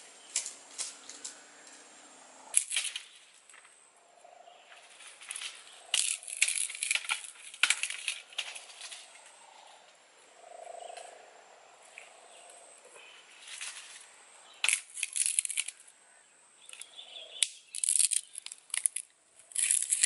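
Dry bamboo strips and dry grass rustling and crackling as they are split and handled, in irregular bursts with quiet gaps between.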